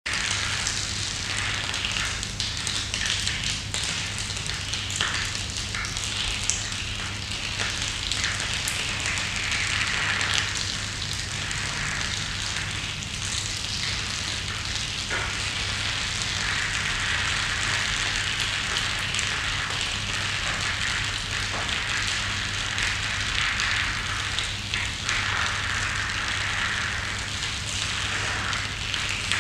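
Steady crackling, hissing noise with scattered clicks over a low steady hum.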